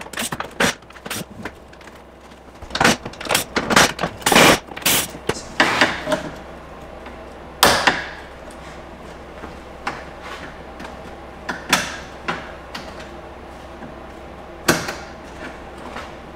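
Plastic trim and clips on a car's front end being pried loose and handled: a quick run of sharp clicks, snaps and knocks, then single louder knocks spaced a few seconds apart.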